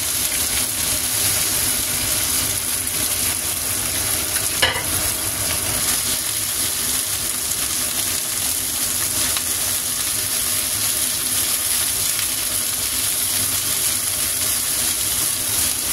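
Chicken pieces sizzling steadily in hot oil in a nonstick frying pan, turned with metal tongs, with one sharp knock about four and a half seconds in.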